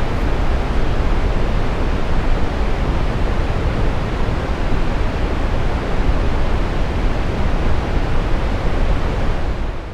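Loud, steady rushing water, like a waterfall or rainforest river rapids, fading out at the end.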